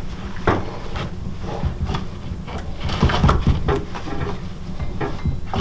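Wet rawhide lacing being drawn through and pulled tight across the back of a frame drum, which tightens the drum skin. Irregular scraping and rubbing with short clicks and knocks, busiest about three seconds in, over a steady low hum.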